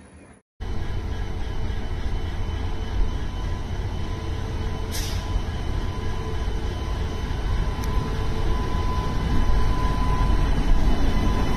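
Indian Railways electric locomotive hauling a passenger train close past: a steady heavy rumble of wheels on rail that slowly grows louder as it comes by, with a thin steady tone running through it. A brief hiss about five seconds in.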